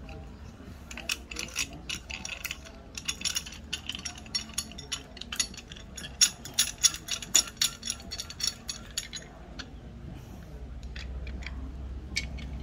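Large swivel bench vise being worked by hand: a run of quick, irregular metallic clicks and rattles that stops about nine seconds in.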